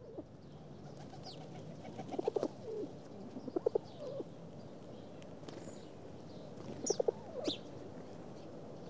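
Birds calling: clusters of short, low, repeated notes, a handful of times, with a few brief high chirps mixed in.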